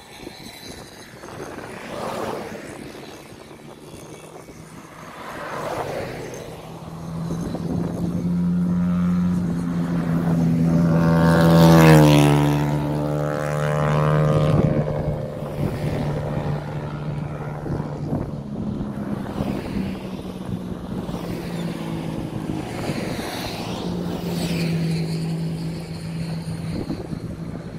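Road traffic passing close by: a few vehicles whoosh past, then an engine note builds to its loudest about twelve seconds in and drops in pitch as the vehicle goes by, with another engine passing near the end.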